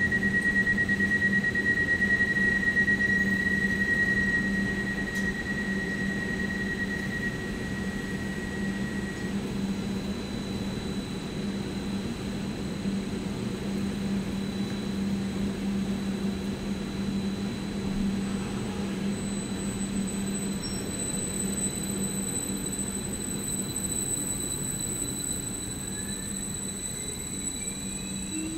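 Stadler Flirt electric multiple unit at the platform, its equipment giving a steady low hum, with a high steady tone over the first nine seconds or so. Near the end a whine rises in pitch as the train accelerates away.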